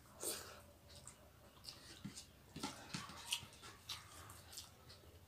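Two people eating rice by hand: faint chewing and lip smacks, heard as a string of short, sharp clicks.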